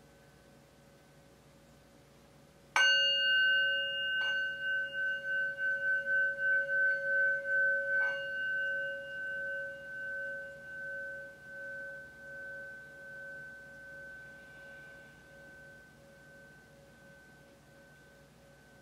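Metal singing bowl struck once with a mallet about three seconds in, with two lighter clicks a little later. Its ringing tone wavers and swells, then slowly fades away.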